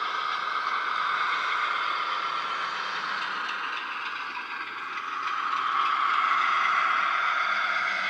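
Model Class 73 electro-diesel locomotive running, its Hornby HM7000 sound decoder playing the locomotive's sound through the model's small speaker as a steady, rattly mechanical noise. The sound swells about five seconds in as the locomotive comes nearer.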